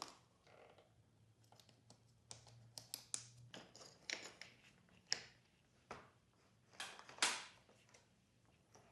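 Faint handling noises: scattered small clicks and a few short scrapes as a lock-on grip is slid onto a dirt bike handlebar and fitted by hand.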